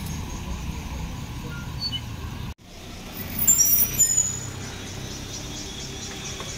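Steady low rumble of road traffic. About two and a half seconds in it cuts off abruptly, and a second later a brief burst of high-pitched squeals rises over the rumble.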